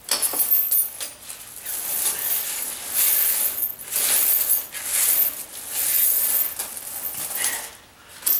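Steel tire chain links jingling and clinking as the chain is unhooked and pulled around a car tire and over a concrete floor. The clinking comes in repeated bouts and dies down briefly near the end.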